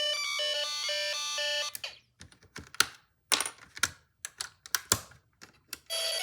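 A Snap Circuits Junior kit's small speaker sounds electronic siren tones, a quick run of stepped beeps that stops about two seconds in. A string of sharp clicks and knocks follows, and the tones start again near the end.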